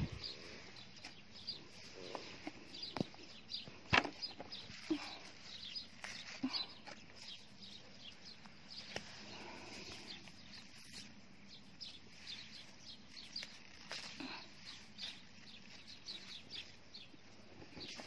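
Radish leaves and soil rustling and crackling as hands work through the plants and pull radishes up, with scattered small clicks and a sharper click about four seconds in.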